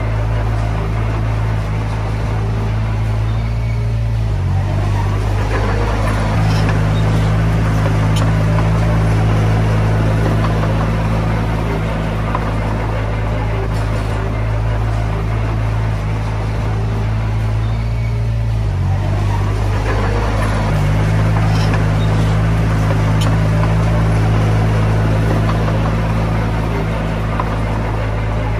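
Diesel engine of a Komatsu D20P bulldozer running steadily under work. Its drone shifts pitch twice, about four seconds in and again some fifteen seconds later, growing slightly louder after each shift, with faint clanks over it.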